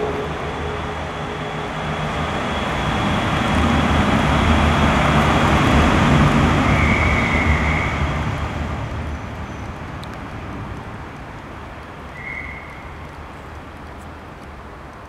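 A vehicle passing by: a broad rumble that grows louder over the first six seconds, then fades away. Two short, high-pitched chirps sound about seven and twelve seconds in.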